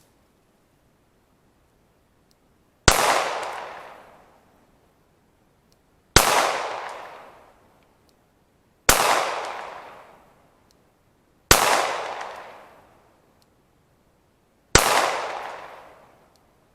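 Five shots from a Glock 19 9mm pistol, spaced about three seconds apart, each followed by a long fading echo.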